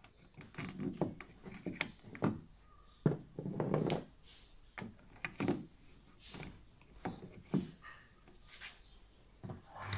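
Irregular plastic clicks, knocks and rubbing from a hand fitting a bulb into the bulb holder of a BMW F30 tail light. The loudest is a sharp knock about three seconds in.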